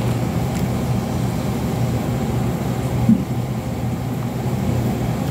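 Steady low mechanical hum of a running fan, with a brief bump about three seconds in.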